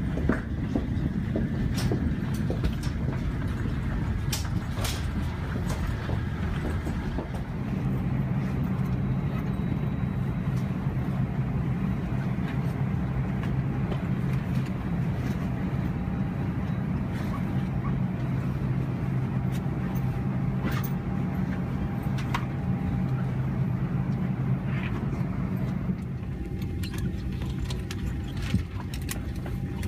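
Steady low hum inside a parked Airbus A320's cabin at the gate, with scattered clicks and knocks. The hum changes tone near the end.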